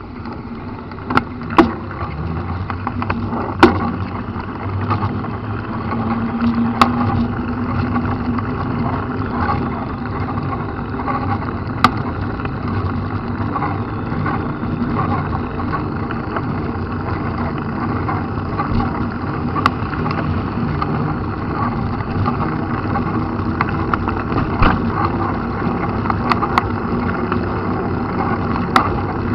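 Riding noise of a mountain bike on a wet road, picked up by a bike-mounted camera: a steady rush of wind and tyre noise that builds up in the first couple of seconds, with sharp clicks and knocks from bumps every few seconds.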